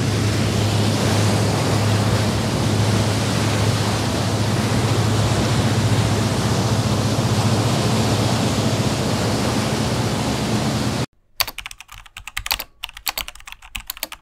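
A loud, steady rushing noise with a low hum under it, which cuts off abruptly about eleven seconds in. It is followed by a few seconds of quick, irregular computer-keyboard typing clicks, a typing sound effect for on-screen text being typed out.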